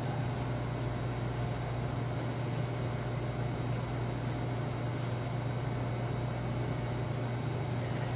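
Steady low hum with an even rush of air from running kitchen machinery.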